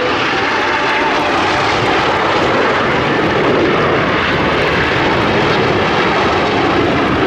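Jet noise from the Frecce Tricolori's Aermacchi MB-339 trainers flying their display: a loud, steady rush of engine sound.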